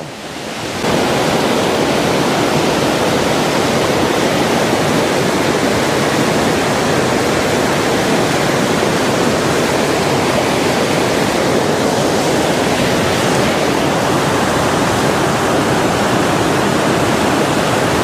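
Waterfall rushing in heavy flow after monsoon rain: a loud, steady roar of falling water that swells up over the first second and then holds even.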